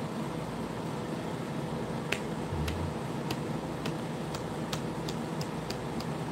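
A run of about ten sharp clicks, starting about two seconds in at roughly two to three a second and coming a little faster toward the end, over a steady low hum.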